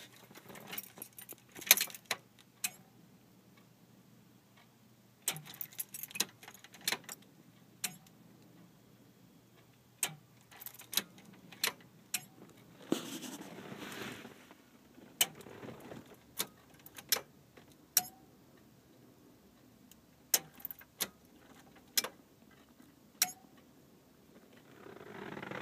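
1989 Toyota Van failing to start: sharp single clicks come at irregular intervals and in loose groups instead of the engine cranking over. A brief jangle of keys is heard twice.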